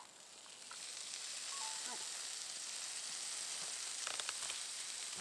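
Fish sizzling in a hot frying pan: a steady hiss that swells up about a second in and then holds.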